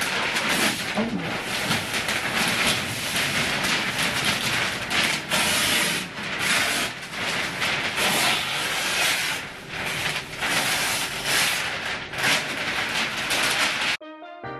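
A large sheet of green roll paper rustling and crinkling as it is pulled off a paper-rack roll and handled. It is a continuous crackly hiss that swells and dips, and it cuts off suddenly near the end, where soft piano music starts.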